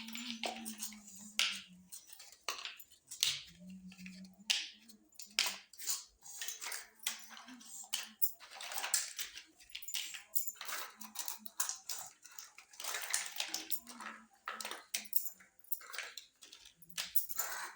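Small plastic toy kitchen pieces being handled and set in place: an irregular run of light clicks, taps and rustles, with a few short low hums near the start.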